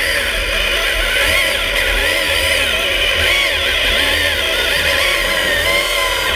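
Stanley CS-06 hydraulic chainsaw running underwater while cutting through a wooden piling, its pitch rising and falling as the chain works through the wood.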